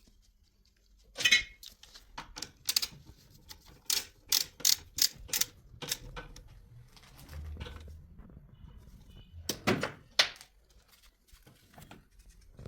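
Irregular metallic clicks and knocks of hands and tools working on a car starter motor, about a dozen sharp strikes, one with a brief ring a little over a second in.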